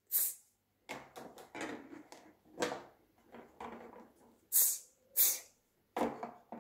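Plastic toy-kitchen pieces being handled: a squeezed plastic condiment bottle gives a short hissing puff of air, then light plastic knocks and clatter as bottles are moved about, with two more short hissing puffs a little before the end.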